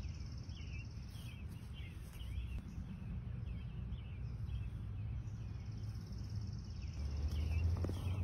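Summer outdoor ambience: a steady high insect trill that drops out about a second in and returns about five seconds in, with a short chirp repeating about twice a second. Underneath is a low rumble that grows louder near the end.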